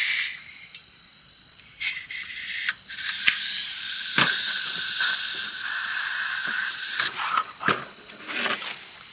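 Butane gas hissing steadily from a portable camping stove for about four seconds and cutting off suddenly, with a few sharp clicks around it, as the stove fails to light on a fresh gas can that may be leaking slightly.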